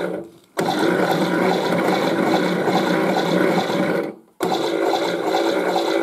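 Zanussi Auto toy washing machine playing its built-in washing sound effect: a steady mechanical, water-like noise. Twice it fades away briefly and then cuts back in suddenly, the first time just after the start and again about four seconds in.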